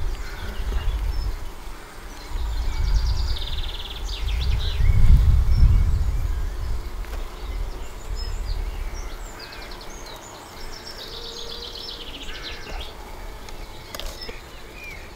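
Honey bees buzzing around an open nucleus hive while a brood frame covered in bees is handled. A low rumble runs through the first half and is loudest about five seconds in, and high chirping trills come twice.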